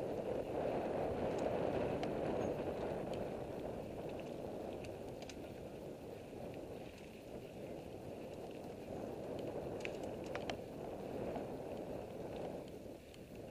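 Commencal Meta AM mountain bike riding fast along a dry dirt singletrack: a steady rush of tyre roll and wind on the microphone, with scattered sharp clicks and rattles from the bike and a cluster of them about ten seconds in.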